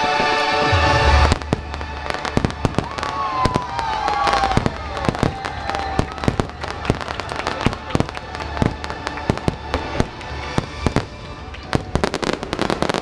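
A fireworks display: a rapid barrage of aerial shell bursts and crackling, many reports a second over a low rumble, with a falling whistle around four seconds in. Orchestral show music plays for about the first second, then stops as the barrage takes over.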